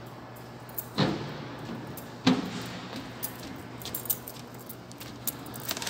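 Small metal parts being handled: two knocks a little over a second apart, then a run of light metallic clinks and jingles.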